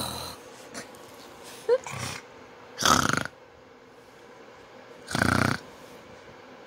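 Small white dog close to the microphone giving four short, noisy snorting huffs a second or two apart, the two later ones loudest.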